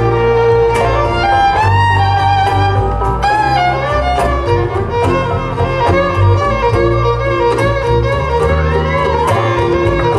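A live folk string band plays, with a bowed fiddle carrying the melody over mandolin and strummed acoustic guitars.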